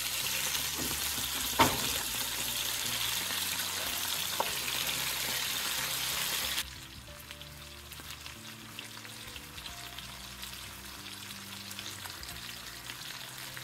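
Whole pomfret fish shallow-frying in oil in a nonstick pan, a steady sizzle. A spatula knocks sharply against the pan about a second and a half in and taps lightly at about four seconds. The sizzle drops much quieter after about six and a half seconds.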